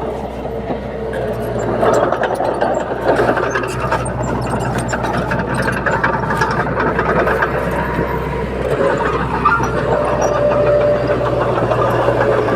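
Komatsu D21P bulldozer's diesel engine running steadily, with scattered short clicks and clatter over the steady engine drone.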